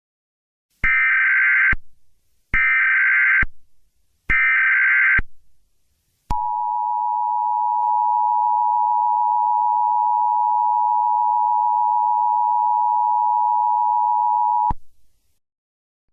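Emergency Alert System tones: three short bursts of the screechy digital header data, each just under a second, followed by the steady two-tone attention signal held for about eight seconds and cut off sharply.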